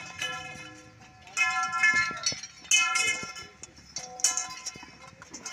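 Metal tent poles clanging against each other and on the ground as they are handled and fitted, about three loud ringing clangs that fade over a second, with a few short sharper clinks between.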